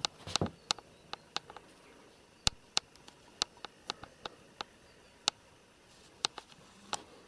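Light, irregular clicks and taps of kittens' claws and paws on bare wooden floorboards as they scamper about, about fifteen sharp ticks spread unevenly.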